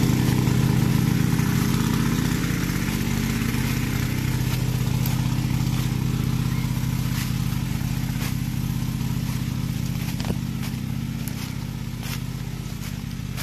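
Honda water pump's small petrol engine running steadily, slowly growing fainter as the listener walks away along the delivery pipe. A few crisp crunches of footsteps land on dry leaf litter.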